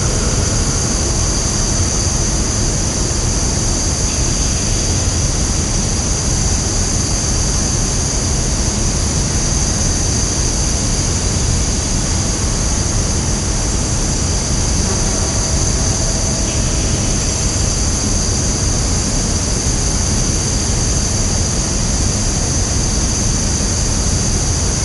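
Woodland ambience: a steady, dense high-pitched insect chorus over a constant low rumble, with a few faint short calls standing out now and then.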